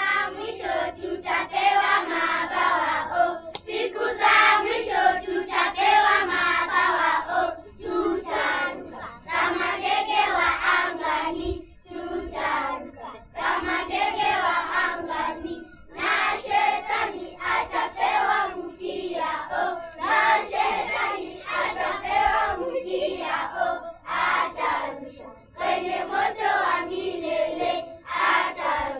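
A group of children singing a song together in chorus, with hand claps.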